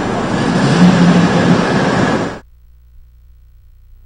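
Steady outdoor background noise, an even rushing hiss, which cuts off suddenly about two and a half seconds in, leaving only a faint low hum.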